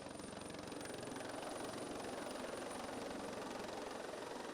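Steady drone of an engine running, with no change in pitch or level.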